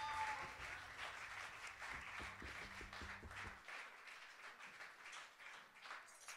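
Audience applause at the end of a concert: dense clapping that thins out and fades away. A low hum underneath stops about three and a half seconds in.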